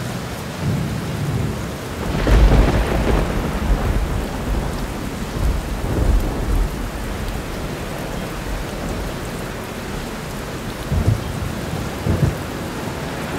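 Heavy rain falling steadily, with a long roll of thunder starting about two seconds in and another rumble around six seconds; two short low thumps come near the end.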